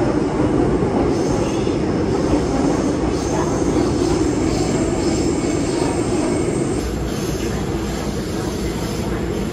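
Steady running noise of a subway train heard from inside the carriage, easing slightly about seven seconds in.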